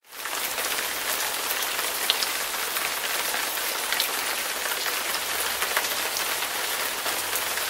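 Steady heavy rain: a dense, even hiss with many sharp raindrop ticks scattered through it. It fades in quickly at the start.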